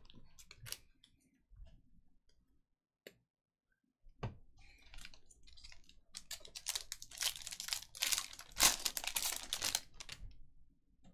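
Trading card pack wrapper crinkling and tearing as it is opened, with light clicks of cards being handled. The rustling starts about four seconds in and is densest in the second half.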